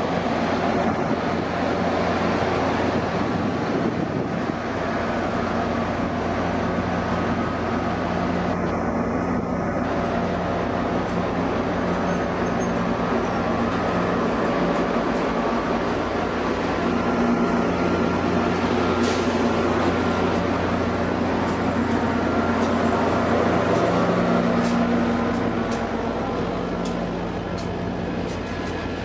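Ex-Amtrak EMD F40PH diesel locomotives on a passenger train moving slowly past, their engines running steadily and growing louder as they draw near. Sharp wheel clicks over the rail joints start about two-thirds of the way in.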